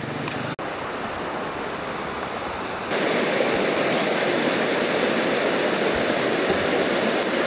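Rushing river rapids: a steady wash of fast-flowing water that gets louder about three seconds in.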